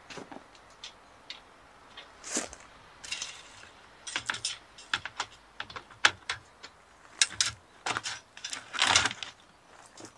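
Irregular clicks, taps and short rustles of objects being handled, growing busier about four seconds in.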